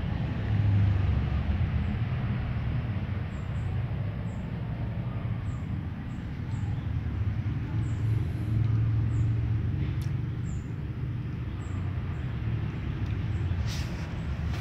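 A steady low rumble, with faint scattered ticks over it and two short rustling bursts near the end.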